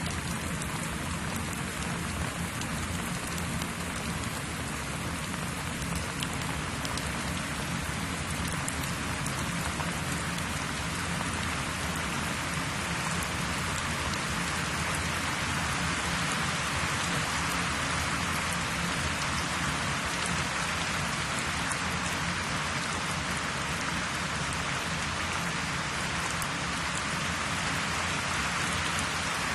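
Steady rain-like hiss with faint fine pattering over a low steady hum, growing slightly louder partway through.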